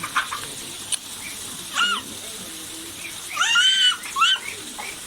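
Domestic poultry calling: a short rise-and-fall call about two seconds in, then a longer one and a quick third call near the end.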